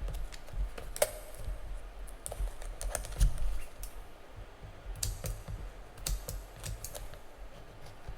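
Irregular light clicks and taps of an earbuds box and charging case being handled and opened, over a low rumble of handling.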